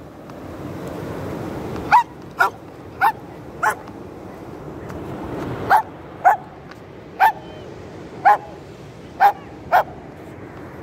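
A yellow Labrador retriever barks in short, single barks, about ten in all, spaced roughly half a second to a second apart, asking for a stick to be thrown. Surf washes in behind, swelling twice.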